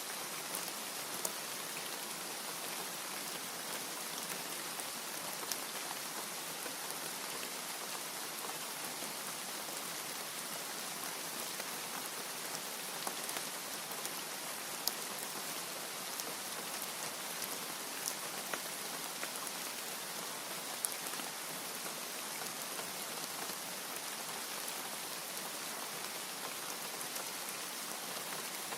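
Steady rain hissing evenly, with a few single drops ticking sharply now and then.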